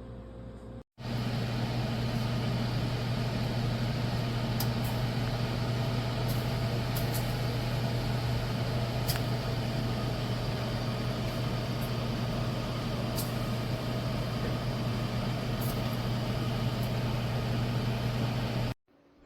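An Emeril Lagasse air fryer toaster oven running, its convection fan giving a steady whir over a low hum, with a few faint ticks. It starts and stops abruptly.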